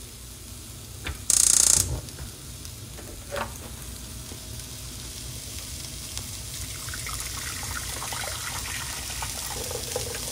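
Finely ground bacon starting to sizzle in a wok, the hiss building gradually louder, with small ticks from the pan. Near the start there is a brief loud rush of noise.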